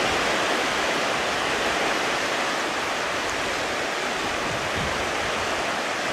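Steady rushing noise of water and wind on a boat moving across the lake, with no pauses.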